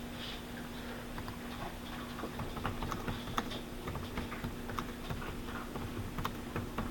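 Faint, irregular clicking and tapping of typing on a computer keyboard, over a steady low hum.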